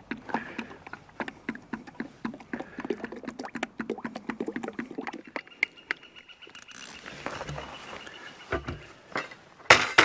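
Hydraulic oil glugging out of a plastic bucket through a funnel into a wood chipper's hydraulic reservoir, in quick irregular gulps as air bubbles back into the bucket. The gulps ease off about halfway through into a quieter pour. Near the end comes a loud clunk as the emptied bucket is set down.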